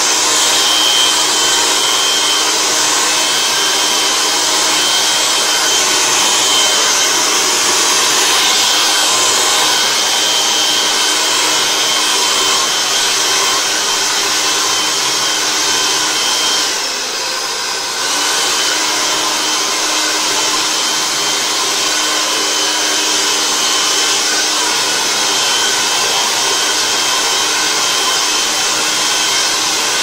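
Handheld hair dryer blowing steadily on wet hair to dry it straighter, a continuous airy rush with a faint steady whine. The sound dips briefly for about a second about halfway through, then comes back at full strength.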